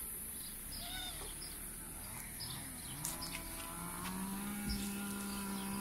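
A farm animal's long, low call, rising in pitch about two seconds in and then held steady, over faint bird chirps.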